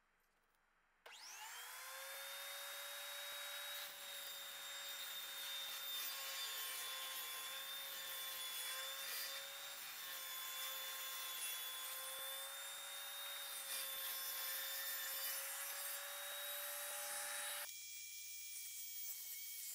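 Portable table saw switched on about a second in: the motor spins up quickly and runs steadily with a high whine while a board is ripped into narrow strips about 1/4 inch wide. Near the end the sound drops abruptly to a quieter, steady whine.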